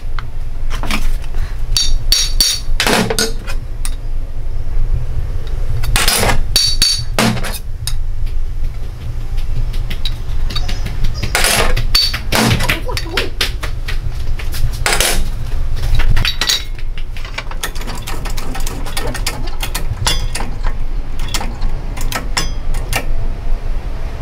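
Hammer blows on a motorcycle crankshaft assembly: sharp metallic strikes at irregular intervals, some in quick clusters, over a steady low hum.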